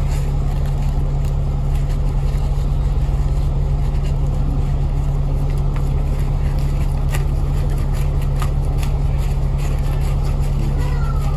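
Steady engine and road rumble heard from inside a Citybus bus on the road, with a deep, constant hum and faint clicks and rattles from the bus body and fittings.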